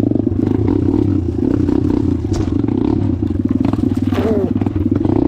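Suzuki DRZ dirt bike's single-cylinder four-stroke engine running at steady revs, with scraping and clattering from brush against the bike.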